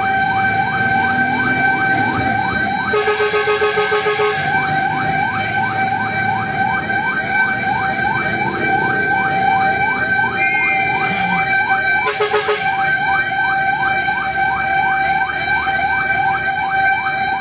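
Fire truck's electronic siren wailing in a fast yelp, about three rising sweeps a second. Short pulsing horn blasts cut in twice, about three seconds in and again about twelve seconds in.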